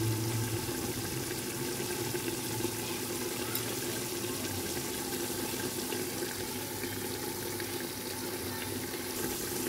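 Chicken pieces frying in oil and their marinade juices in a pot, a steady sizzling hiss with a faint low hum underneath.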